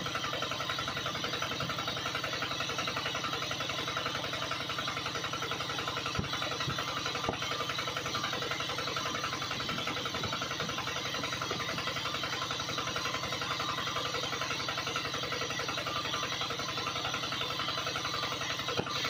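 Small water pump's motor running steadily at constant speed, a continuous mechanical drone with a fast even pulse, as it draws pond water up the suction hose.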